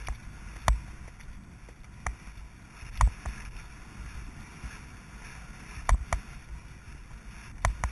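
A horse moving fast along a soft, leaf-covered forest track: muffled hoofbeats under a steady rush of wind on the microphone, with about six sharp clicks scattered through it.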